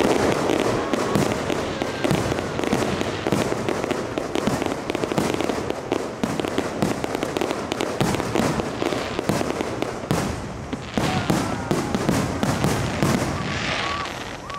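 Fireworks show: a dense, unbroken barrage of bangs and crackles, many a second.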